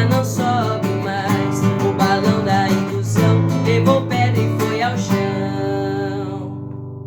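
Acoustic guitar playing the closing bars of a song: picked notes and strums, then a final chord about five seconds in that rings out and fades.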